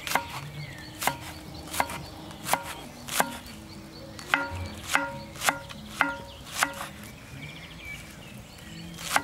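Chef's knife chopping green onions and mint on a bamboo cutting board: eleven steady knife strikes, each with a short woody ring, with a pause of about two seconds before the last.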